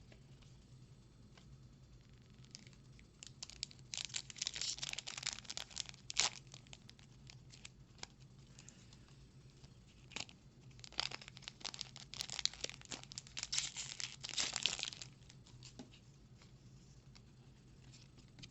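A Magic: The Gathering booster pack's foil wrapper being torn open and crinkled, in two long spells of crackly tearing noise, about four seconds in and again about ten seconds in.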